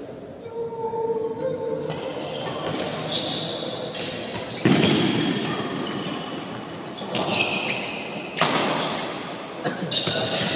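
Badminton rally in an echoing sports hall: sharp racket-on-shuttlecock hits a few seconds apart, the loudest about halfway through, over spectators' voices.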